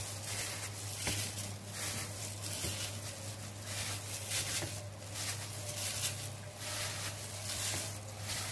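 Plastic-gloved hands handling and arranging fried meat patties in a ceramic baking dish: irregular soft rustles and light taps, over a steady low hum.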